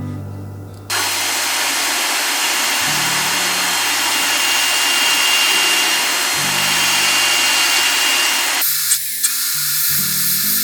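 A workshop tool making a loud, steady hissing noise, starting about a second in and cutting off suddenly near the end, over background music. A few light clicks follow.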